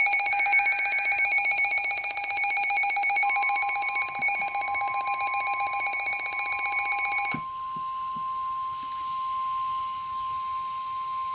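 A loud, rapidly pulsing electronic alarm buzz with several steady pitches sounds for about seven seconds and then cuts off suddenly. About three seconds in, the NOAA Weather Radio warning alarm tone starts over it: one long, steady, single-pitch beep that goes on after the buzz stops, marking the start of a new severe weather warning.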